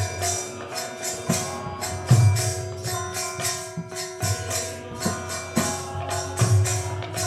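Instrumental passage of a devotional kirtan between sung lines: metal percussion jingling in a quick steady rhythm over a sustained drone, with occasional deep drum beats.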